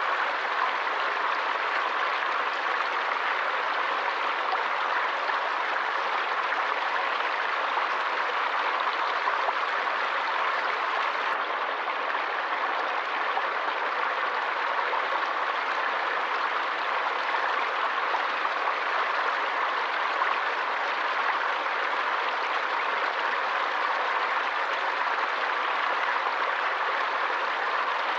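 Stream water running steadily: an even, unbroken rush with no distinct splashes or drops.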